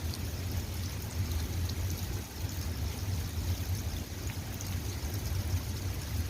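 Steady rain falling, a continuous hiss with scattered drops ticking close by, over a steady low rumble.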